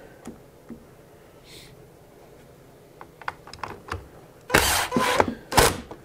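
Cordless drill/driver driving a screw into the vacuum's plastic housing in a short burst, then a second brief burst, after a few light clicks of screws and parts being handled. The screw is driven in hard, overtightened.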